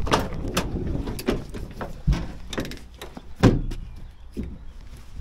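Rear door of a van being opened, with a string of clunks and rattles; the loudest knock comes about three and a half seconds in.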